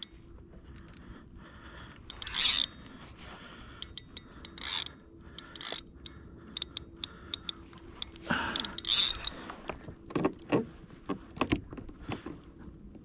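Fishing reel ratcheting in short bursts of clicking while a big hooked fish is fought on the line. The longest and loudest burst comes a little past halfway.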